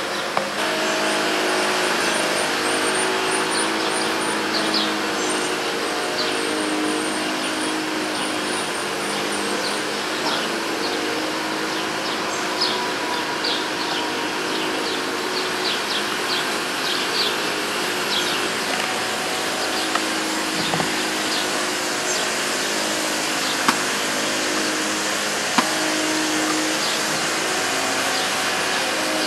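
Steady outdoor background noise, an even hiss with a wavering low hum under it, and small birds chirping high above it, with a rapid trill during the first ten seconds or so.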